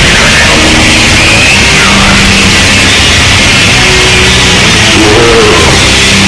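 Loud lo-fi black metal: a dense, noisy wall of distorted sound over held low notes that change every second or so.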